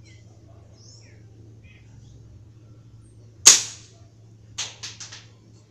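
A .177 Crosman Titan air rifle firing a single shot: one sharp crack about three and a half seconds in. About a second later comes a quick run of four fainter clicks.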